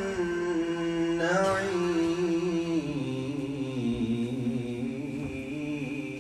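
A man's melodic Qur'an recitation: one long held, drawn-out note that steps down lower about halfway through, wavers there, and fades near the end.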